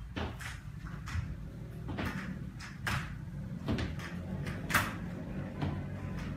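Aluminium underarm crutch tips and a high-heeled shoe knocking on a tiled floor in a walking rhythm, about seven knocks less than a second apart, over a steady low hum.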